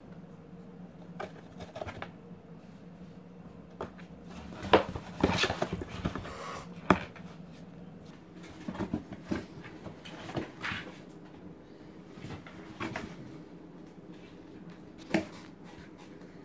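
Cardboard box being pawed and bumped by cats: scattered knocks, taps and scraping rustles, the sharpest knock about five seconds in, over a faint steady hum.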